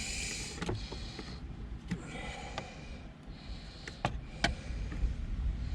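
Scattered light clicks and handling noises of hands working on wiring and a connector, with two short hissy sniffs or breaths close to the microphone, over a steady low rumble.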